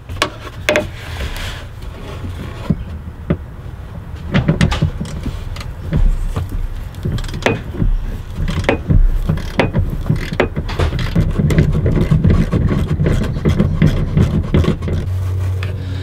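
Wrench with a Torx T45 bit working loose the bolt that holds the seat-belt retractor inside the pillar: irregular metallic clicks and knocks over the rubbing and scraping of an arm against the plastic trim.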